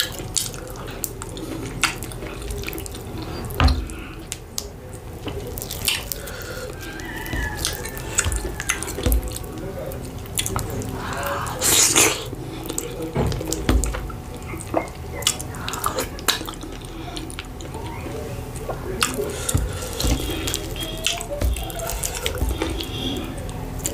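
Close-miked hand-eating of fufu with egusi soup and goat meat: sticky, wet mouth and finger sounds of pinching, swallowing and chewing, in irregular clicks and smacks, the loudest about twelve seconds in as a mouthful goes in.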